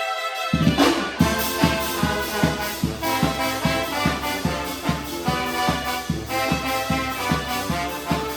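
Charanga brass band playing an EDM tune: trumpets and trombones hold chords, then a steady bass-drum beat comes in about half a second in, with the horns playing on over it.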